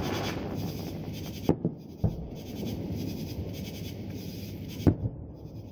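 Aerial fireworks shells bursting in the distance: four sharp bangs, two of them close together about a second and a half in, one just after, and the loudest near the end, over steady background noise.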